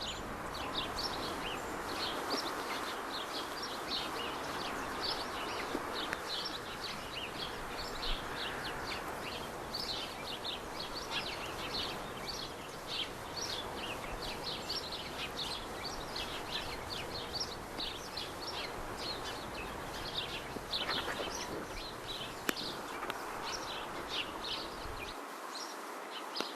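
Small birds chirping over and over in short, high, falling notes, two or three a second, over a steady background hiss.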